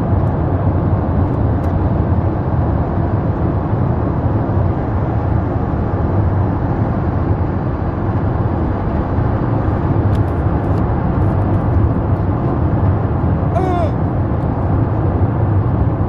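Steady road and engine noise inside a moving car's cabin. A short pitched squeal sounds once, about three-quarters of the way through.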